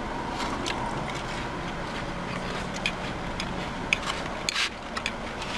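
Close-up chewing and mouth sounds of someone eating a soft cookie: scattered small wet clicks and one louder smacking noise about four and a half seconds in. A steady low hum runs underneath.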